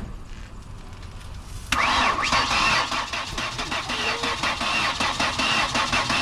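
Car engine cranking on its starter on jumper power, starting abruptly about two seconds in and turning over steadily in a fast even rhythm without catching.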